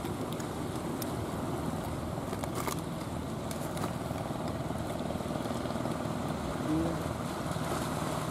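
Engine of a wooden outrigger fishing boat running steadily as it passes, over a hiss of surf and wind.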